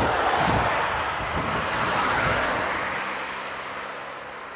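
A vehicle passing by: a rush of road noise that swells to its loudest in the first couple of seconds, then fades away, with a faint engine hum in the middle.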